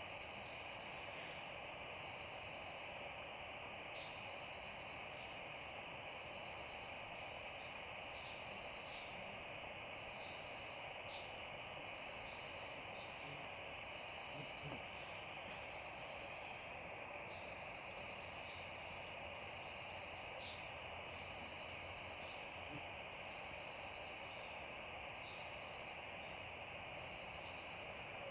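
Night insect chorus: crickets trilling steadily at a high pitch, with overlapping chirps and a regular high pulse about once a second, over an even steady hiss.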